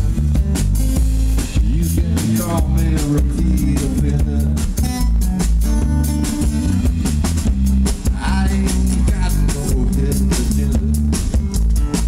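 Live blues band playing an instrumental stretch of a song: acoustic guitar, drum kit and bass guitar, with a strong bass line under the drum hits.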